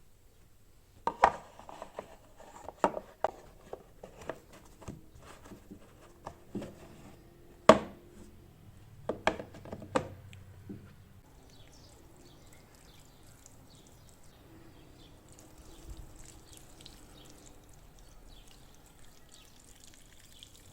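Household objects being handled and set down: a string of sharp knocks and clatters, the loudest about a second in and again near eight seconds. From about eleven seconds in, a fainter steady noise follows.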